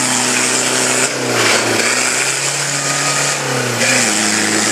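Toyota Land Cruiser's engine revving under load as the 4x4 pushes through deep mud ruts. The engine note dips and picks up again about a second in and again near the end as the throttle changes.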